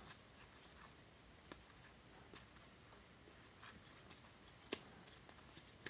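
Near silence, with a few faint soft ticks of baseball cards being slid off the top of a hand-held stack.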